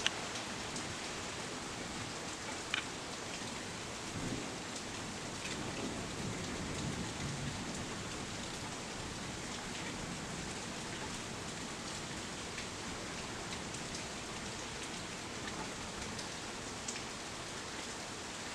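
Steady heavy rain from a thunderstorm pouring down, with a few sharp drips striking a surface. A faint low rumble of thunder comes through for a few seconds about four seconds in.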